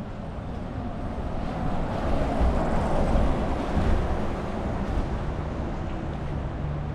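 A vehicle passing by in city traffic: a steady rushing noise that swells over a couple of seconds, then fades.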